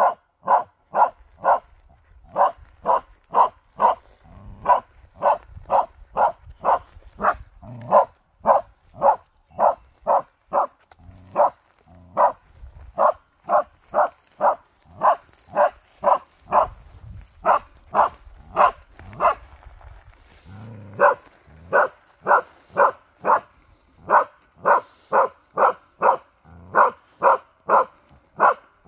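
Karelian bear dog barking steadily at a moose decoy, about two barks a second with only a brief pause near the two-thirds mark: the rhythmic bay a moose dog gives to hold a moose at stand.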